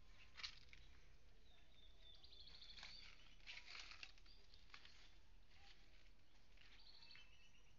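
Near silence, with faint birds chirping and a few short rapid trills in the distance.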